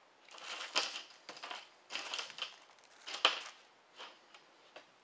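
Crinkling and rustling from nitrile-gloved hands handling small kit parts, in a series of short irregular bursts with a sharper click about three seconds in.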